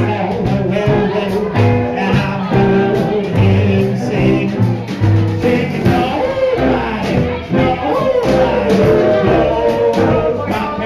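Live band playing music for a swing dance, with a singer.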